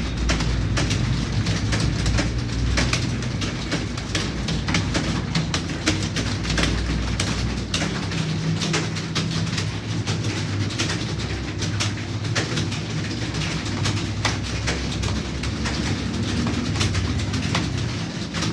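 Computer keyboard typing: a fast, irregular stream of key clicks over a low steady hum.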